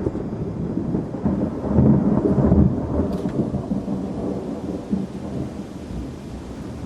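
A long roll of thunder rumbling, swelling to its loudest about two seconds in and then slowly dying away, with rain falling.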